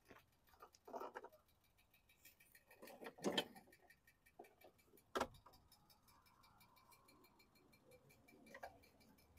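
Near silence with a few faint, short plastic clicks and scrapes as a filler cap on a lawn mower engine is unscrewed and lifted off; the loudest comes about three seconds in. A faint, steady ticking runs underneath.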